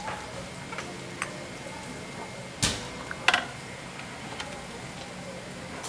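A metal ladle clinks and knocks against a large aluminium stockpot of stew as it is worked and set down. There are a few light clicks, then two sharper knocks about two and a half and three and a half seconds in, over a steady low hum.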